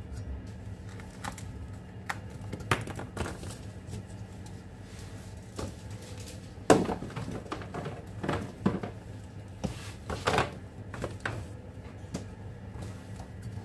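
Scattered light clicks and knocks of foil-wrapped chocolates and clear plastic bins being handled as chocolates are picked out and set on a tray, with a sharper knock about halfway through. A steady low hum runs underneath.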